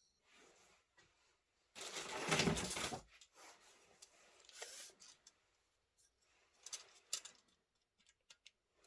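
Handling noises: a loud rubbing rustle lasting about a second, softer scrapes, then several sharp clicks near the end.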